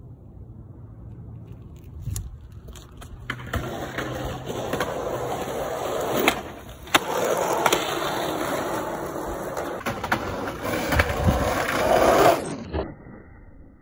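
Skateboard wheels rolling over rough, cracked asphalt, a steady rumble that grows louder over several seconds, with a few sharp clacks of the board along the way. It cuts off suddenly near the end.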